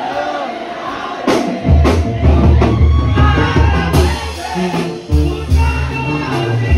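Crowd voices, then about a second and a half in loud music starts up, with a deep bass line and sharp drum hits.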